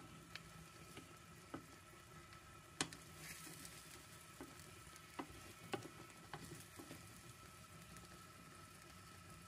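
Egg, sausage slices and tomato slices frying in a nonstick pan: a faint sizzle with scattered sharp pops and crackles, the loudest about three seconds in.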